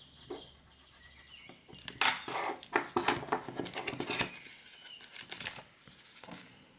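Thin plastic sheet crinkling and crackling as fingers press it down over clay petals and then peel it back. The crackling is dense from about two to four seconds in, with a shorter run a second later.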